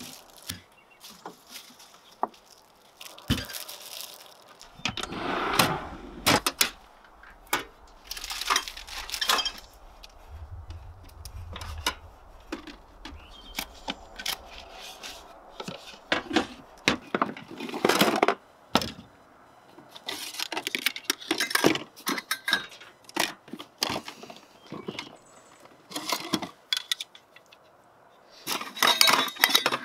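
Food and kitchen gear being handled on an aluminium checker-plate box: irregular knocks, clatter and rustling as items are set down and the box is opened, with metal clinks of cookware and utensils, busiest near the end.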